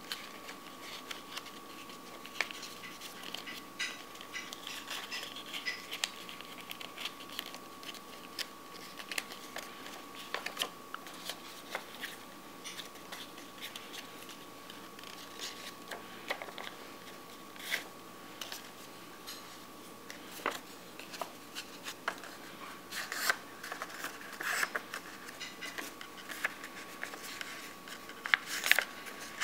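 Sheet of paper rustling, crinkling and crackling as it is folded and creased by hand, in scattered short crackles that get louder and closer together near the end.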